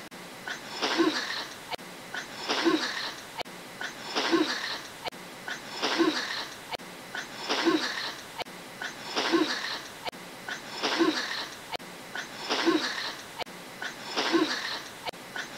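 A person drawing noisy breaths through clenched teeth, nine of them at an even pace, about one every second and a half.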